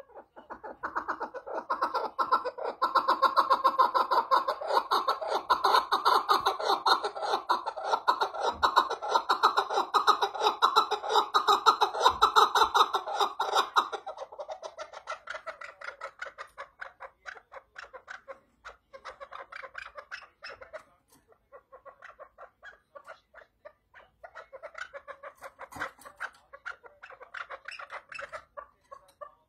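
Chukar partridge calling: a long run of rapid, rhythmic clucks. The calls are loud for about the first fourteen seconds, then quieter and more broken.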